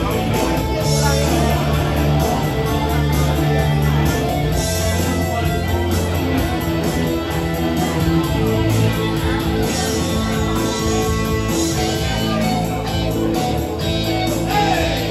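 Live music from an electric guitar played through an amplifier, with steady low bass notes underneath.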